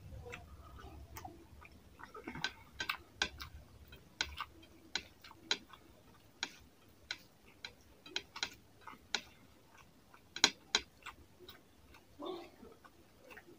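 Wet clicks and smacks of bare fingers mixing and squeezing rice with fish curry on a plate. They come irregularly, a few a second, with one louder smack about two-thirds of the way through.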